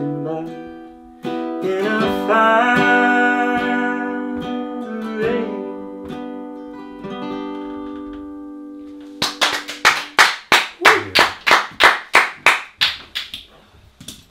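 Harmonica and strummed acoustic guitar play an instrumental close to a folk song, with held, bending harmonica notes over the chords, then letting a last chord ring and fade. About nine seconds in, hand clapping starts, roughly three claps a second, and dies away over about four seconds.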